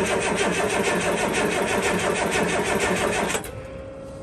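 Starter cranking a cold diesel truck engine, a loud, fast rhythmic churning that stops about three and a half seconds in without the engine catching. A single steady tone follows.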